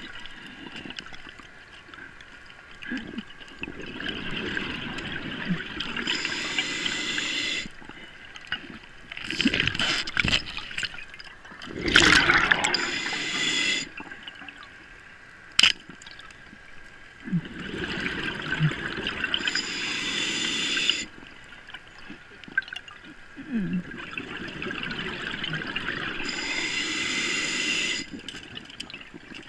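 An underwater diver breathing through a scuba regulator: a hiss on each inhale and gurgling bursts of exhaled bubbles, repeating in a cycle every several seconds. The loudest rush of bubbles comes about halfway through.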